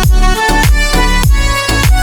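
Background music with a steady dance beat: falling electronic kick-drum sweeps about three times a second under pitched synth notes.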